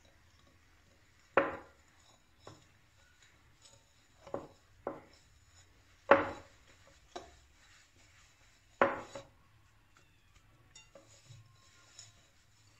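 A metal fork knocking and scraping against a glass mixing bowl while stirring flour into a dough mixture: about six sharp clinks, each with a brief ring, the loudest three spread across the few seconds, with faint scraping between.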